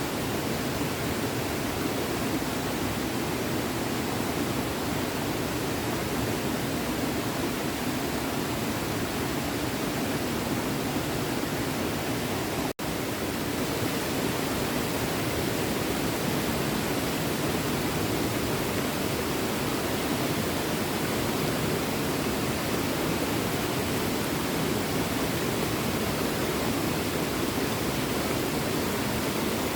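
Small stream running steadily over rocks, a continuous rushing of water that breaks off for an instant about 13 seconds in.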